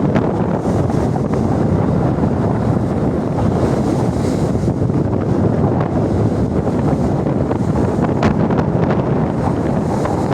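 Strong wind buffeting the microphone at sea, a steady rumbling noise, with the wash of the water underneath.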